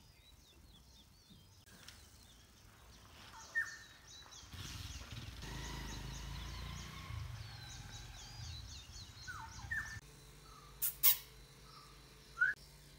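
Several small birds chirping and calling, with quick high twittering chirps and a few sharper upward-sliding calls. A low rumble runs under the middle part, and two sharp clicks come near the end.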